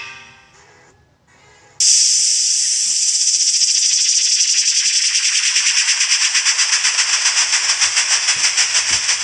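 A sound effect played back from a compilation: after a brief pause, a loud hiss like escaping steam starts suddenly about two seconds in, flickering rapidly and slowly fading. The tail of a previous tone-like effect dies away at the very start.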